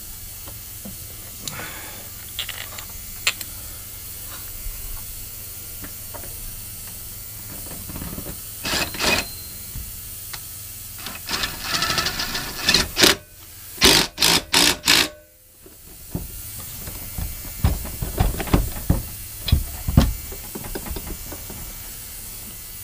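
Clicks and knocks of a mower blade, washer and bolt being fitted by hand, then, a little past halfway, a DeWalt cordless impact driver run in several short bursts to tighten the blade bolt, followed by a few low knocks.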